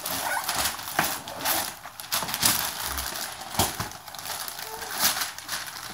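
Wrapping paper being torn and crinkled as a present is unwrapped, in short irregular rips and rustles.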